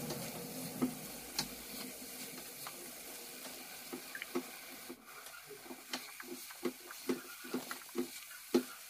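Spatula stirring and scraping thick, spice-coated gooseberry pickle around a nonstick frying pan, over a faint frying hiss. From about halfway the strokes come as soft, regular scrapes and knocks, about two to three a second.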